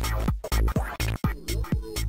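Electronic music from the soundtrack of an Amiga demo, with a fast, even beat of punchy kick drums that drop in pitch and sharp snare-like hits.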